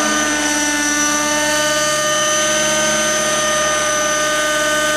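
Align T-Rex 600N RC helicopter in flight, its O.S. .50 Hyper two-stroke nitro engine and spinning rotors making a steady, high-pitched whine at constant speed.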